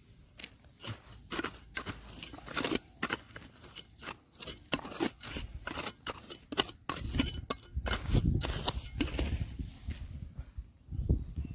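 Irregular clicking and scraping of stones and gravel being dug through, with a low rumble joining about halfway through.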